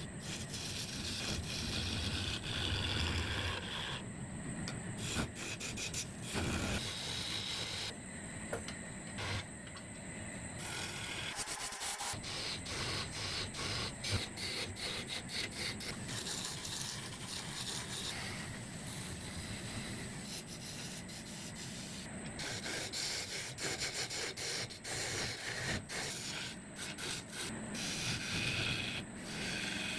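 Wood lathe spinning a wooden centrepiece blank, with a tool or abrasive held against the turning wood, giving a continuous rubbing, scraping sound that shifts abruptly a few times.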